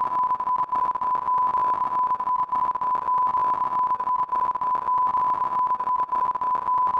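A Vinyl Draw sound file: an AM carrier tone of about 1,000 Hz, modulated by the brightness of image pixels read in a spiral, heard as one steady tone inside a noisy buzz whose loudness flickers rapidly.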